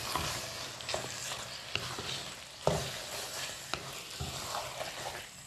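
A spoon stirring thick chicken masala in a nonstick kadai over sizzling heat, with a few sharp taps of the spoon against the pan.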